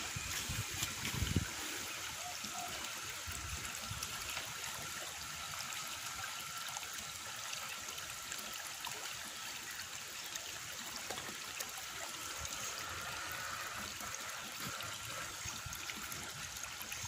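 Water trickling steadily, an even hiss, with a few soft low knocks about a second in.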